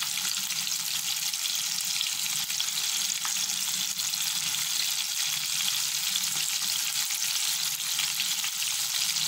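Breaded chicken pieces deep-frying in hot sunflower oil in a kadai: a steady sizzle of fine ticks and pops.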